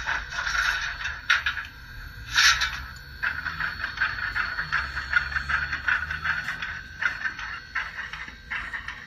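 Model steam locomotive running slowly along the track: the small motor and gearing whir with a dense, rattly clicking of wheels and rods on the rails. There are a few louder rattling bursts in the first three seconds.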